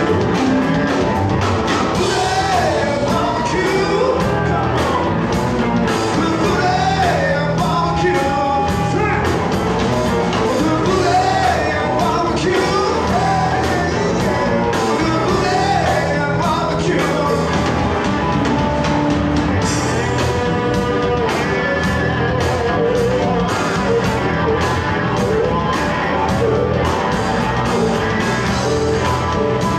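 Live electric blues band playing: electric guitars, electric bass and drums keep a steady groove under a lead vocal with bending, wavering notes.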